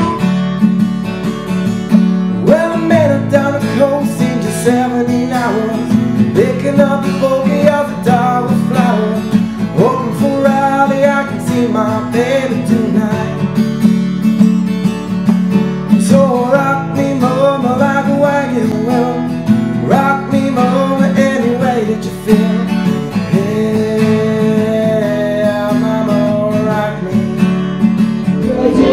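Acoustic guitar strummed steadily, with a man singing a melody over it from about two seconds in.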